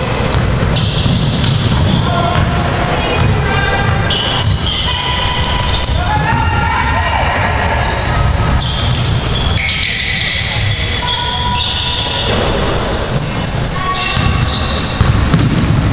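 Basketball game play in a gym: the ball bouncing on the hardwood floor, sneakers squeaking in short high chirps throughout, and players calling out, all echoing in the hall.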